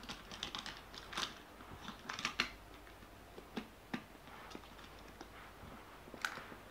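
Light clicks and clatter of a Hot Wheels plastic track set and a toy car being handled. The clicks come thickest in the first two and a half seconds, then a few single clicks follow.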